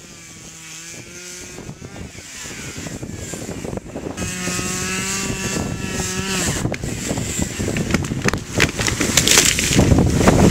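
Chainsaw running at high revs in two long pulls, each a second and a half to two seconds. Crackly noise grows louder toward the end.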